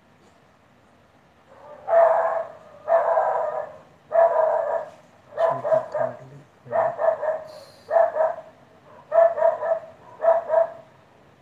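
Old English Bulldog barking loudly and repeatedly, starting about a second and a half in, roughly one bark a second, the later barks coming in quick doubles and triples.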